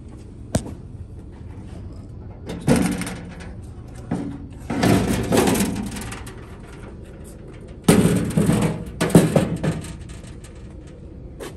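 The cover of a walk-behind core aerator being unlatched and lifted off: a sharp click of a latch near the start, then several bouts of clattering and clunking as the cover is handled and set aside.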